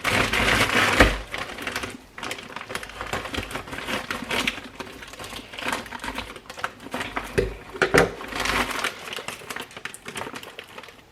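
Frozen meatballs clattering as they are tipped from a plastic bag into a crock pot, with hard knocks and rattling. The loudest burst comes in the first second or two, with sharp knocks about seven and eight seconds in.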